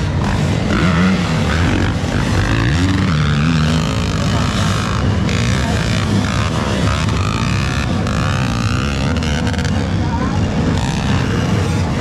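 Motocross dirt bikes racing around a dirt track, their engines repeatedly revving up and falling back.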